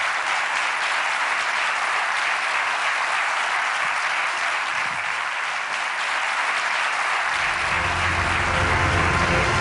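Large audience applauding steadily. About seven seconds in, music with a low bass comes in under the clapping.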